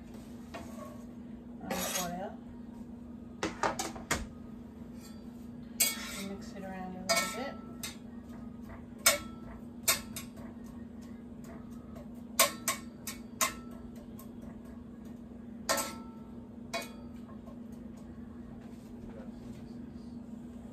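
A metal spatula and a knife knocking and scraping against a skillet and a cutting board as chopped onion is pushed into the pan and stirred. About a dozen sharp, irregularly spaced clacks and a few short scrapes sound over a steady low hum.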